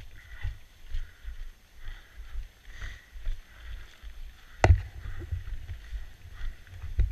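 Footsteps crunching on packed snow and ice, about two a second, with a sharp knock about four and a half seconds in and another near the end.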